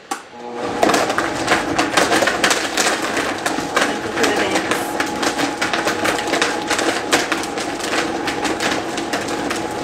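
Countertop blender starting up within the first second and running at full speed, blending a smoothie with ice: a steady motor hum under a rapid clatter of ice and ingredients striking the jar.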